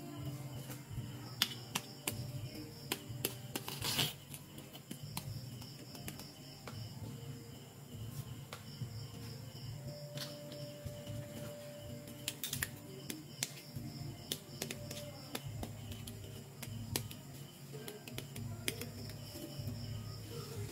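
Scattered light clicks and taps of plastic toy pieces being handled and set down, with a sharper knock about four seconds in and again about twelve and a half seconds in. Insects chirp behind in a steady, even pulse.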